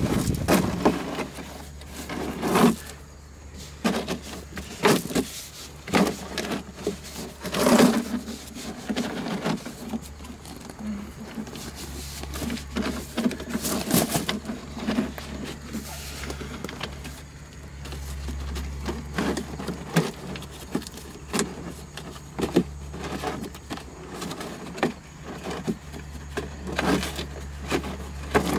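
Corrugated plastic drain pipe being pushed and twisted by hand into the inlet of a plastic NDS Flo-well dry-well tank: irregular scraping, rubbing and knocking of plastic on plastic.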